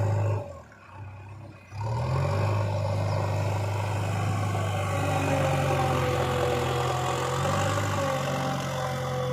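Diesel engine of heavy farm machinery running steadily, a JCB excavator or the tractor being loaded. It drops away briefly near the start and comes back about two seconds in, with a faint whine slowly falling in pitch later on.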